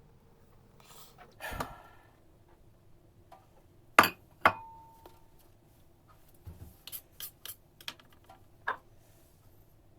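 Kitchen handling sounds while making garlic pickle: a brief rustle, then two sharp knocks, the second leaving a short ring as of a glass jar, then a run of small clicks and taps.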